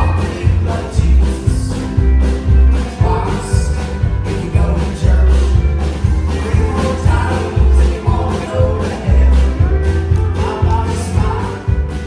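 Country-style song music with a steady beat and heavy bass, playing on after the last sung line.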